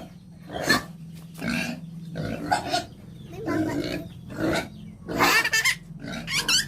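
Domestic pigs grunting in short calls about once a second, turning into higher squeals near the end, over a steady low hum.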